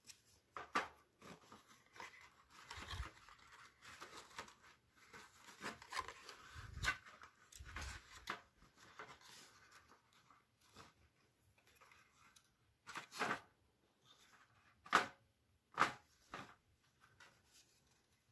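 Cardstock rustling and crinkling as a folded 3D pop-up box card is handled and its flaps are pushed open and folded down, with a few sharper snaps of the card.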